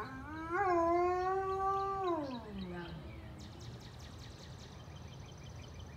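A high-content wolfdog giving a single howl of about two and a half seconds: it rises briefly, holds one steady pitch, then slides down at the end.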